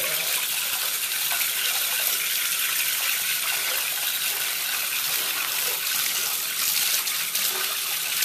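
Bathtub tap running steadily, its stream of water splashing into the tub.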